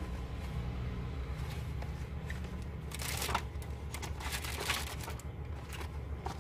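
Small cardboard LED bulb boxes being handled, picked up and set down on a table: irregular scraping and rustling with a few light knocks, over a steady low hum.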